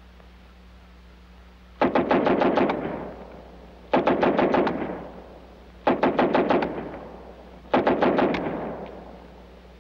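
Submachine gun fired in four short bursts of rapid shots, about two seconds apart, each burst trailing off in echo.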